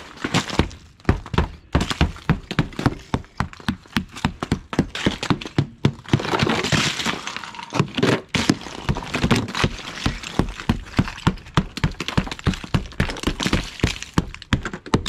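Rubber mallet striking thick freezing-rain ice glaze on a truck's windows and body: rapid dull thunks, about three a second, as the ice cracks and breaks away. About halfway through comes a denser burst of cracking and shattering ice.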